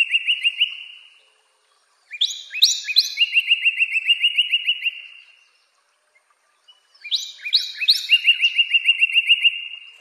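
Northern cardinal singing: song phrases that open with a few loud, slurred whistles sweeping down in pitch and run into a rapid series of short repeated notes. One phrase fades out about a second in, a second runs from about two to five seconds, and a third starts about seven seconds in.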